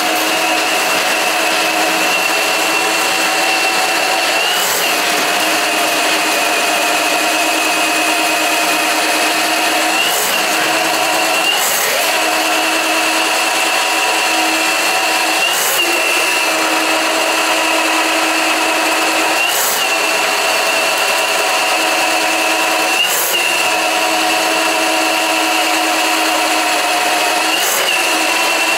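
Milwaukee M18 drain snake running, its drum spinning a 7/8-inch cable down a sewage-backed floor drain. The motor whine is steady, with a brief wobble about every four seconds.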